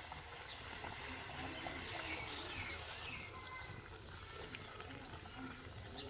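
Golgappa puris deep-frying in hot oil in a wok, a steady sizzle as a wire skimmer presses them under to puff. An animal call sounds in the background about two seconds in.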